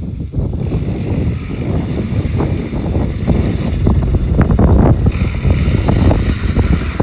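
A running vehicle's low rumble with wind buffeting the microphone, and scattered knocks and rattles.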